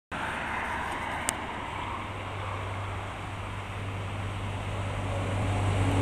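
Road traffic noise with a low engine hum that grows louder near the end. A single sharp click about a second in.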